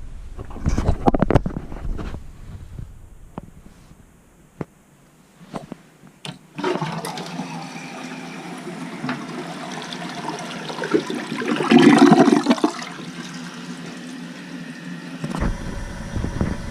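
Water rushing into a kitchen sink and down the drain, starting about a third of the way in, swelling briefly past the middle and stopping near the end. A few knocks and clatter come before it.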